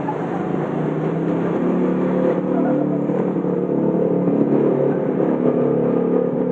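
An engine running steadily, with a steady pitched hum that grows louder over the first couple of seconds and then holds.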